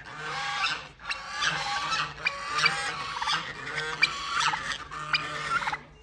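Several white domestic geese honking and cackling in dense, overlapping calls, with a short lull about a second in.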